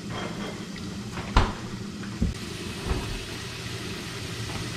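Three sharp knocks, the first the loudest, as a refrigerator door and containers are put away, over a steady sizzle of empanadas deep-frying in a pot of hot oil that grows louder about two seconds in.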